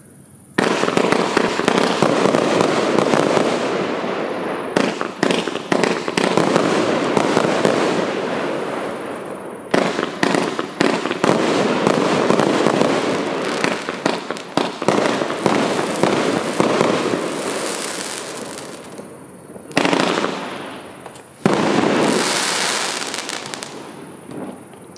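Epic Fireworks Mad Macaw 33-shot, 500-gram consumer cake firing: a dense, rapid barrage of shots bursting and crackling, starting about half a second in, with a couple of brief lulls. Two sudden loud bursts come near the end, then the sound dies away into crackle.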